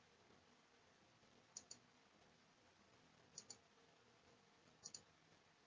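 Three faint mouse-button clicks, each a quick click-click pair, spaced about a second and a half to two seconds apart, over near silence.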